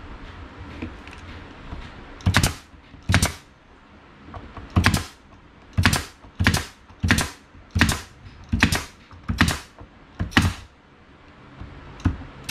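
Bostitch pneumatic nail gun firing nails into the wooden boards of a box: about eleven sharp shots, starting about two seconds in, spaced roughly half a second to a second apart.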